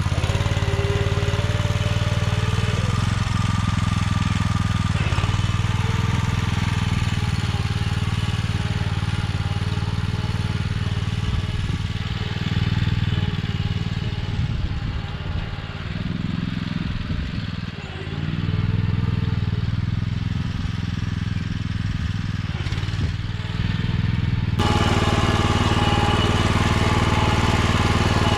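Small engine of a walk-behind tractor running steadily, its note sagging and recovering a few times around the middle. The sound changes abruptly near the end.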